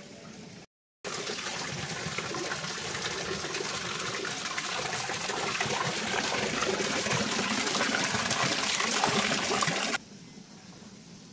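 Water pouring in a steady stream from a carved stone spout. It starts abruptly about a second in and cuts off suddenly near the end.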